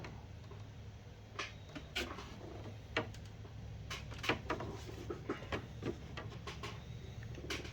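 Scattered light clicks and knocks, about one a second, from an oil bottle and funnel being handled while engine oil is topped up, over a steady low hum.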